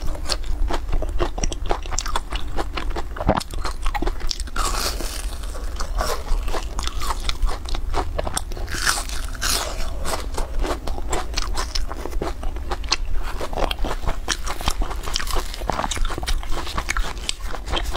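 Close-miked crunching and chewing of a crispy golden-brown snack: a dense, continuous run of crackly bites and chews.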